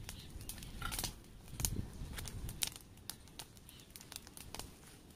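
Open wood fire under a spit crackling, with irregular sharp pops over a low rumble of burning.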